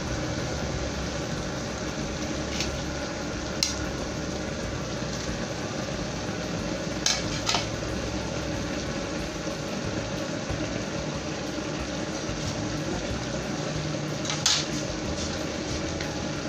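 Shredded bamboo shoots and shrimp cooking in a metal wok: a steady sizzling hiss, with a few sharp clinks against the wok, the loudest near the end.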